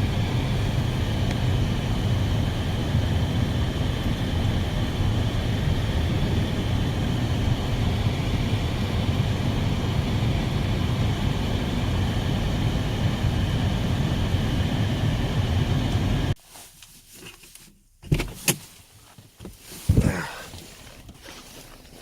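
Steady engine or machine running noise with a low rumble and a constant high whine. It cuts off abruptly about sixteen seconds in, and a few sharp knocks follow.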